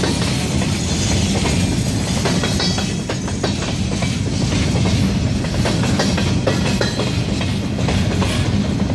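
Freight train of open-top gondola cars rolling past: a steady rumble of steel wheels on the rails, with a running scatter of clicks and clacks as the wheels pass over the rail joints.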